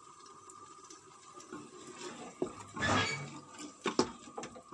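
Kitchen clatter of a cooking pot and metal utensils: a few sharp knocks and clicks and a brief scraping noise about three seconds in, over a faint steady tone.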